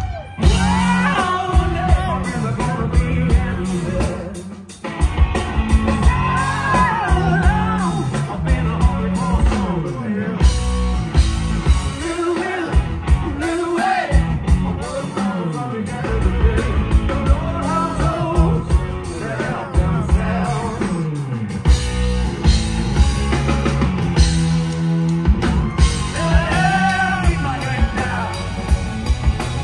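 Live rock band: a male singer belting over electric guitar, bass and drums, with a brief break in the music about four seconds in before the full band comes back in.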